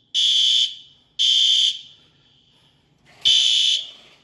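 Building fire alarm horn beeping the temporal-three (Code 3) evacuation pattern in a high, piercing tone. Two half-second beeps about a second apart end one group, then after a pause of about a second and a half the next group begins.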